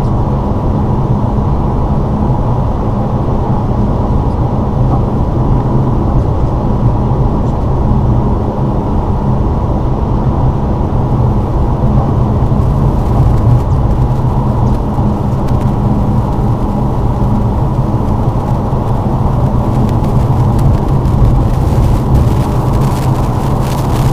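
Lada Vesta driving through deep snow: steady engine and road noise, with faint crackling joining in from about halfway on.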